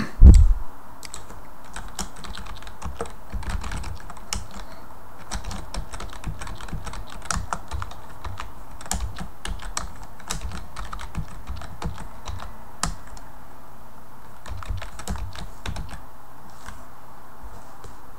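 Typing on a computer keyboard: an irregular run of key clicks while a line of code is entered, thinning out near the end. A loud low thump right at the start.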